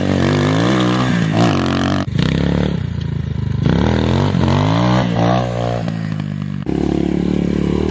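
Chinese 250cc dirt bike engine revving hard, its pitch climbing and dropping several times as the bike accelerates and wheelies. The sound breaks off abruptly about two seconds in and again near the end.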